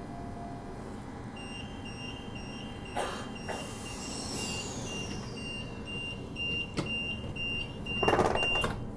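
Door-closing warning beeps on a Bombardier B-series electric train: a high steady beep repeating about twice a second. Near the end the sliding doors shut, the loudest sound.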